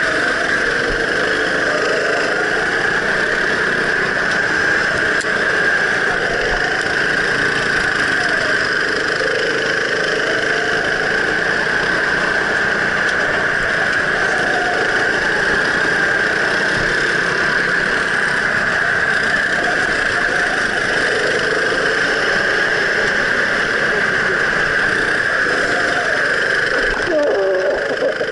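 Go-kart engine running continuously, heard from on board the kart, its pitch rising and falling with the throttle through the corners.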